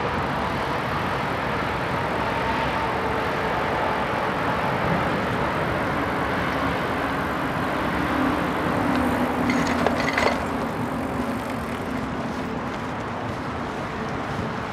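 Steady rushing noise of wind and rolling tyres while moving along a freshly asphalted road, with a few short clicks and a brief rattle just under ten seconds in.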